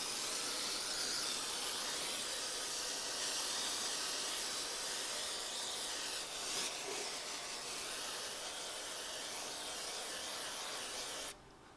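Aerosol spray can hissing in one long, steady spray that cuts off suddenly near the end.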